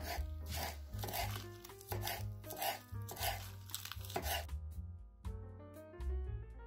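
Kitchen knife chopping lettuce and spinach leaves on a wooden cutting board: about seven even strokes, roughly two-thirds of a second apart, stopping about four and a half seconds in.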